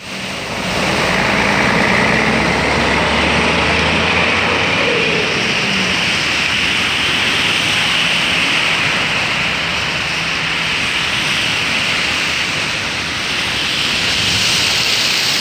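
Traffic driving through floodwater: a bus engine running past in the first few seconds over a steady hiss of tyres throwing up spray, and a car sending up a louder splash near the end.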